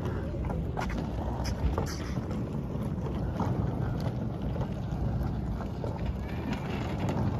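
Wind buffeting the microphone over a steady low rumble, with scattered light clicks and taps.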